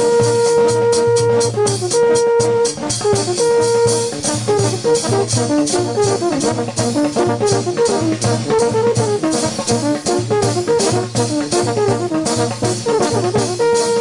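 A Colombian brass band (banda pelayera) playing a porro live: trumpets, trombones and tuba over a steady bass drum and cymbal beat. It opens with three long held chords, then breaks into a running melody.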